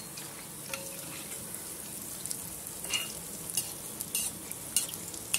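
Jackfruit-and-semolina fritters deep-frying in hot oil in a kadai, with a steady sizzle. A steel spoon turning them over gives several light clicks against the pan.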